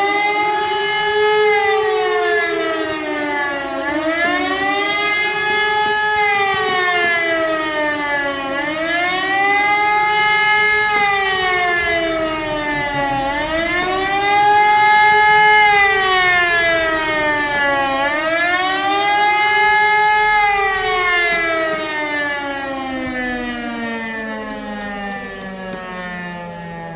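Civil defence siren sounding the German 'warning of the population' test signal: a loud wail rising and falling in pitch about every four and a half seconds. Over the last six seconds it winds down, falling steadily in pitch.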